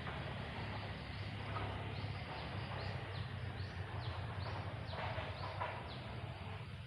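A bird calling in a rapid series of short, high, falling notes over a steady low hum and hiss.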